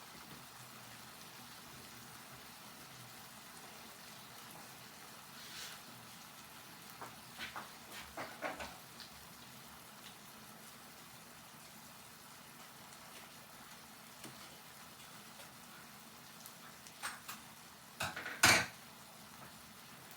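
Kitchen clatter of a few clicks and knocks from utensils and a container over a steady frying hiss, with one sharp, much louder knock near the end.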